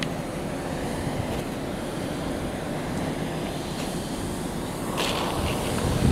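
Wind on the microphone outdoors: a steady low noise, with a few faint clicks about five seconds in.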